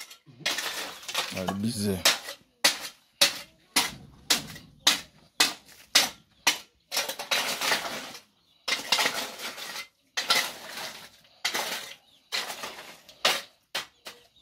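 Loose stones clattering and knocking together as they are dropped and laid by hand into a hardcore stone floor. There are irregular sharp clacks, roughly one or two a second, with a few longer rattling scrapes of stone on stone.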